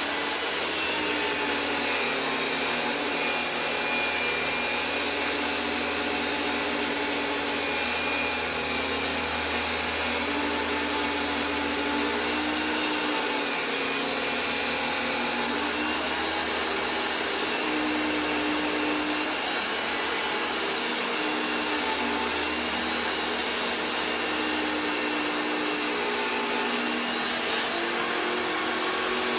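Electric power tool motor running continuously on wood, its whine wavering in pitch and swelling slightly in loudness as the load changes.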